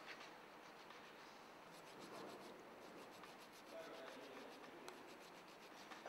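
Faint, uneven scraping of a hand-held metal tool rubbed back and forth along the outer sheath of a borehole power cable, roughening it so the joint compound will bond.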